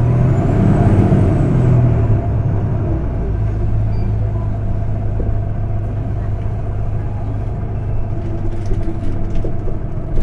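Inside a 2012 Isuzu Erga QKG-LV234L3 city bus on the move, with the windows open: its diesel engine works harder for the first two or three seconds, with a faint high whistle that rises and falls, then settles into a steady drone as the bus runs on.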